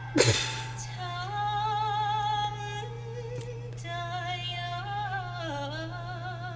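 A woman singing long held notes with vibrato, with a steady low hum underneath. A brief loud vocal outburst comes just at the start.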